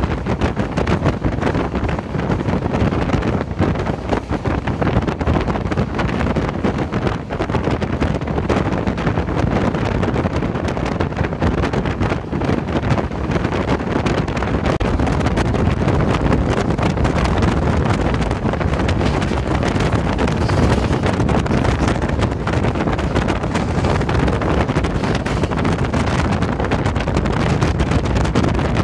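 Running noise of the Humsafar Express train at speed, heard from on board: a loud, steady rush and rumble with wind buffeting the phone's microphone.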